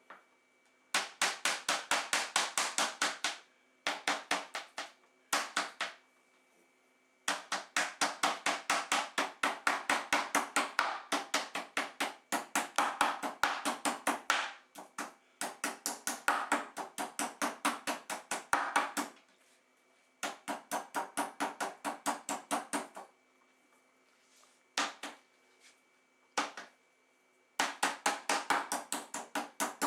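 Meat tenderizing hammer pounding seasoned venison backstrap medallions with its rough face: rapid strokes about five or six a second, in runs of a few seconds separated by short pauses.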